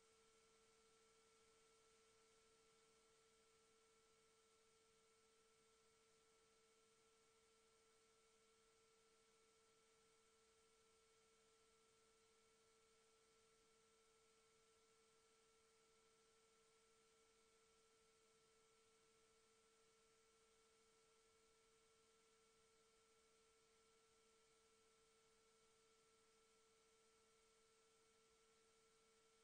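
Near silence, with only a faint steady tone.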